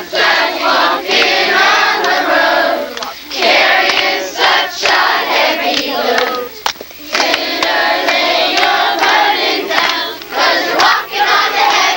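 A group of children singing and shouting together as one loud, ragged chant, with a short break a little past halfway.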